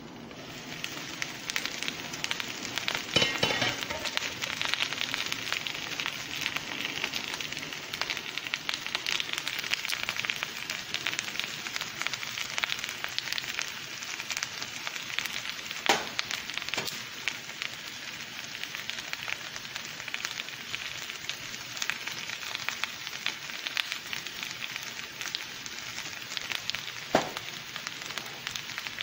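Shredded raw potato frying in hot fat in a nonstick pan: a dense, steady sizzle and crackle that swells about a second in. A few sharp clicks stand out above it.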